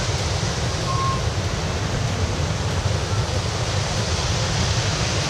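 Wind buffeting the microphone: a steady rushing noise with a ragged low rumble underneath.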